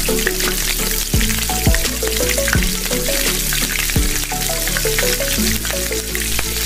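Raw potato sticks sizzling steadily in hot oil in a wok during their first fry, under background music with a steady beat.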